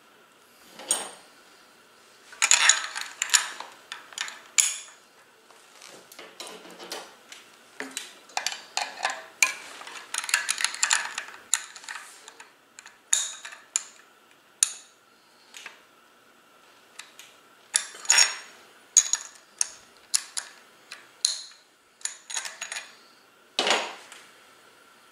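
Small steel parts of a Shimano coaster-brake rear hub clinking against each other and the axle as they are unscrewed and handled during disassembly: irregular clusters of short metallic clinks, with one louder knock near the end.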